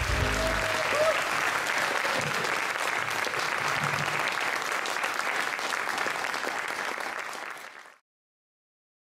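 Audience applauding as the band's final chord dies away in the first half-second. The clapping fades and cuts off abruptly about eight seconds in.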